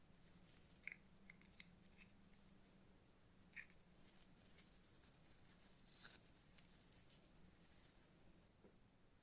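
Near silence with a low steady hum and a few faint, scattered light clicks and ticks.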